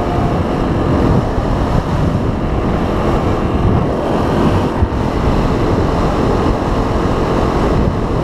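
Wind rushing and buffeting over the microphone of a Yamaha 250 dual-sport motorcycle on the move, with the engine running underneath. There is a brief dip with a small click about halfway through.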